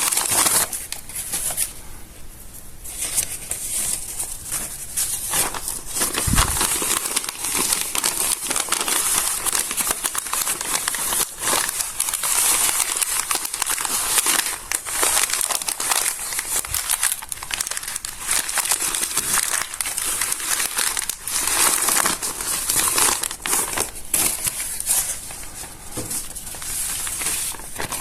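Stiff, crinkled pages of a water-damaged paper notebook being handled and smoothed by hand: a continuous, dense run of crisp paper crinkling and crackling, easing briefly about two seconds in.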